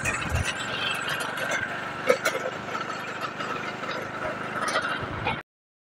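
Motorcycle engine running as it is ridden, with clothing rubbing against the microphone. The sound cuts off abruptly just before the end.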